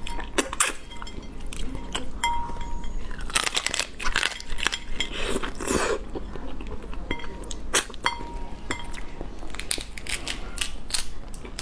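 Crab shell cracking and crunching in close-up as the legs are snapped apart and bitten, a dense run of sharp crackles and clicks with wet eating sounds between them.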